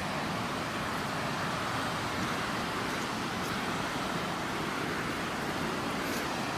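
Steady rush of water from the creek and falls below the trail, an even unbroken hiss at a constant level.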